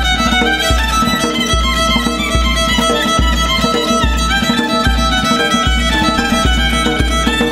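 Instrumental music played live: a violin carries the melody over plucked strings, with a hand drum's deep bass strokes falling steadily about every 0.8 seconds.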